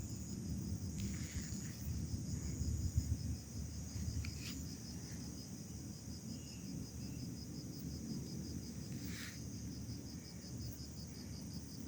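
Insects chirping in a fast, even pulse, with a higher trill coming and going, over a low rumble.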